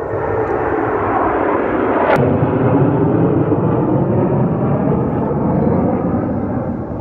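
Loud, steady jet roar from a large formation of military jets flying overhead. About two seconds in there is a brief rising whistle.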